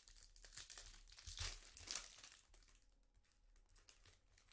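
Foil trading-card pack wrapper crinkling and tearing as it is pulled open by hand, faint and crackly, busiest in the first couple of seconds.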